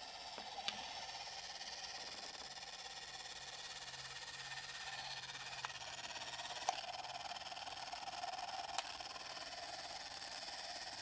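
A few faint, sharp clicks and taps of plastic toy-robot arm parts being handled and fitted together, over a steady quiet hiss; the sharpest click comes about two-thirds of the way through.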